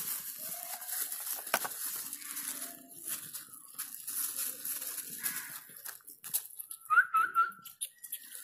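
Puppies scuffling and rustling among plastic litter while they feed, with a sharp click about a second and a half in. Near the end, a puppy gives three short, high whimpering yelps in quick succession.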